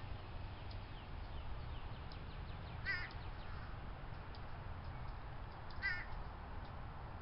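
A crow cawing: short calls with a wavering, quavering tone, repeated evenly about every three seconds. A steady low rumble runs underneath, with a few faint chirps between the caws.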